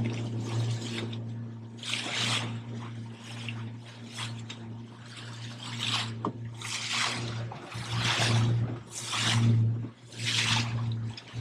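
A boat engine running with a steady low hum, while water washes and splashes against the hull in swells about every second.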